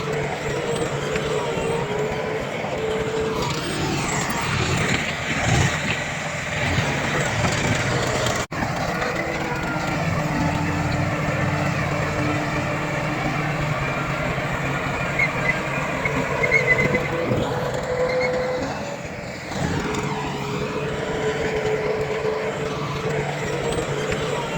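Diesel engines of a bulldozer and dump trucks running and working, their pitch shifting as they load. There is an abrupt break about eight seconds in, and a few short metallic clinks a little past the middle.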